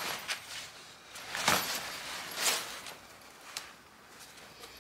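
Heavy swag canvas rustling and scraping as it is handled while a flexible hoop pole is fitted, with two louder swishes about a second and a half in and a second later, then quieter handling with a few light clicks.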